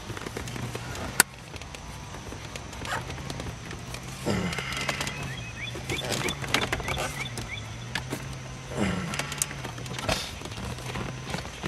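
Plastic dash trim and the digital instrument cluster of a 1984–89 Corvette creaking, scraping and clicking as they are twisted and pried against each other, with one sharp plastic snap about a second in. The cluster is caught on the dash pad. A steady low hum runs underneath.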